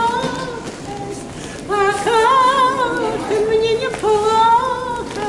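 A woman singing unaccompanied in a high voice, long held notes with vibrato, in phrases broken by two short breaths.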